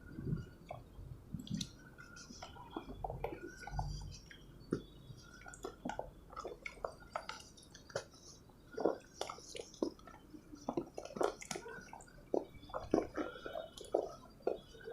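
Moulded pure cement crumbling and crunching: a dense, irregular run of short crackles and snaps, with a few dull low thuds near the start and about four seconds in.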